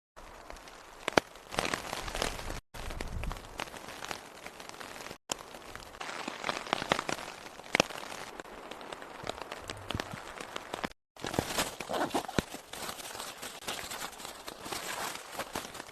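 Rain falling steadily, with many scattered sharp clicks and ticks. The sound breaks off in brief dead silences three times, where the footage is cut.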